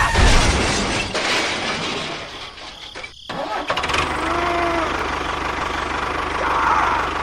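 Small engine of a mini tractor running, cutting out sharply about three seconds in, then picking up again with a steady, evenly pulsing run.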